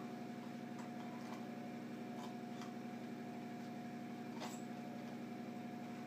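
Faint clicks and light knocks from a blue plastic electrical box and its wires being handled as wire is pulled through. The loudest click comes about four and a half seconds in. A steady low hum runs underneath.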